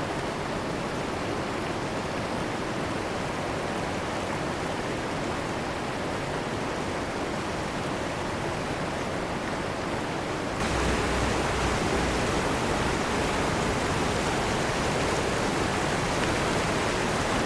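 Waterfall: a steady rush of falling water that suddenly gets louder about ten and a half seconds in.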